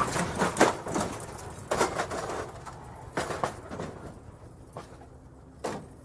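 Aftermath of a car crash: metal and glass debris clattering and tinkling down in scattered hits that grow weaker, with one last clatter near the end.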